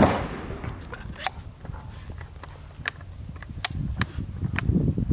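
A 37mm launcher being loaded by hand: a loud clack as the slide-open barrel is pushed forward, then several sharp metallic clicks and some rubbing and rumble as the round goes in and the barrel is slid shut.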